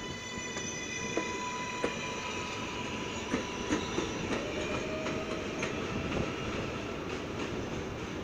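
R143 subway train pulling away from an elevated station: a steady, multi-toned electric propulsion whine after its rise in pitch, over the rumble of the wheels, with sharp clacks as the wheels cross rail joints.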